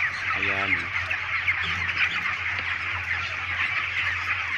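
A large flock of 28-day-old broiler chickens cheeping continuously, many short high calls overlapping into a dense chorus, over a steady low hum.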